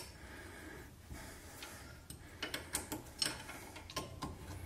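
Scattered light metallic clicks of an Allen (hex) key being fitted into and worked on cap-head bolts, more of them in the second half.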